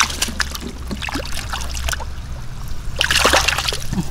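Shallow water splashing and sloshing in short, scattered bursts, with a bigger splash about three seconds in.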